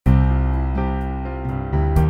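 Instrumental background music starting abruptly: sustained low notes and chords, changing every half second or so.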